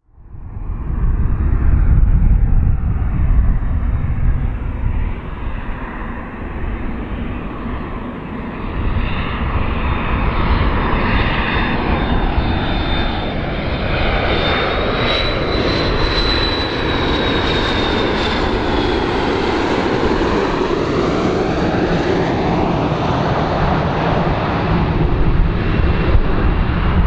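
MD-80-series twin-jet airliner flying low on approach, its engines running with a steady jet rumble. About halfway through, a whine rises and then falls as it passes.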